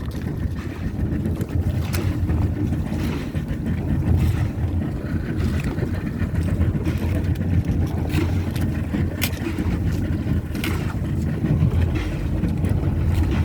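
Motorboat's outboard engine running steadily under way, with wind buffeting the microphone and occasional sharp knocks.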